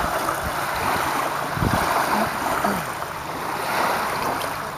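Small lake waves lapping steadily against the shore, with wind buffeting the microphone in a few low rumbles.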